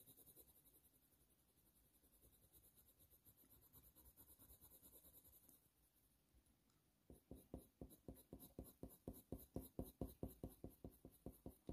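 Faint scratching of a Faber-Castell Polychromos colour pencil shading on hot-press watercolour paper: near silence at first, then light, quick back-and-forth strokes at about four a second from about seven seconds in.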